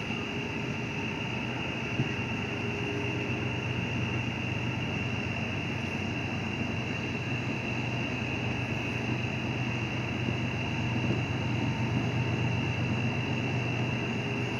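Steady night insect chorus, a constant high-pitched trill, over a low steady rumble.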